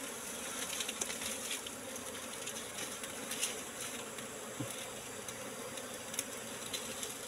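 Steady buzzing of a disturbed colony of wild honeybees swarming around their opened nest while the honeycomb is cut out.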